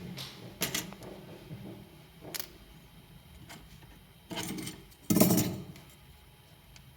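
Small hard objects knocking and clattering on a hard surface in a few separate bursts, the loudest a little past the middle, with a light metallic clink.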